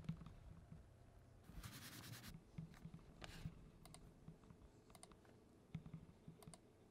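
Near silence: faint room tone with a few scattered soft clicks and a brief soft hiss about one and a half seconds in.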